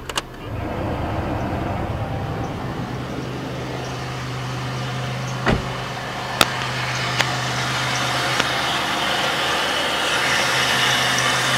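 A 1997 Chevrolet Malibu's 3.1 V6 idling with its coolant cap off while air is burped out of the cooling system. A click, then about half a second in the heater blower comes on at full blast, a steady rush of air that grows toward the end; a thump and a few sharp clicks sound in the middle.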